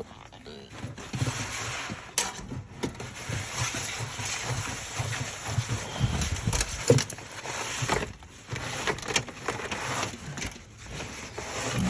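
Rustling, scraping and scattered knocks of hands working in a stripped-out car interior, with a few sharp clicks.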